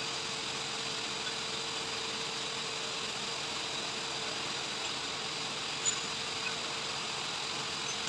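Steady machine hum with a constant low tone and a faint high whine, and one light click about six seconds in.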